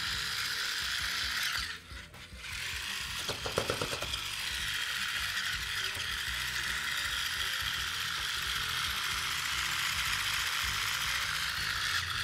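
Plastic toy car's geared wheel mechanism ratcheting steadily as its spiky wheels spin. It breaks off briefly about two seconds in, gives a few sharp clicks, then runs on steadily.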